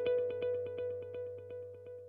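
Background music: a quick run of evenly repeated short notes over a held tone, fading out.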